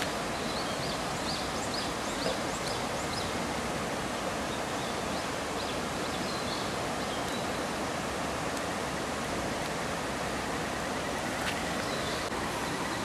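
Steady rush of water, an even hiss like heavy rain or a fast stream. A run of short high chirps sounds over it for the first few seconds, and a faint rapid ticking comes in near the end.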